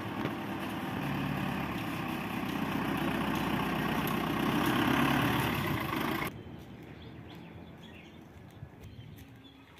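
Armoured vehicle's engine running as it drives slowly past and turns, growing a little louder, then cut off suddenly about six seconds in. What follows is a much quieter street background with a few faint ticks.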